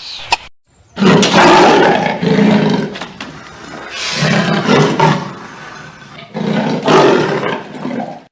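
A big cat roaring: three long, rough roars of about two seconds each.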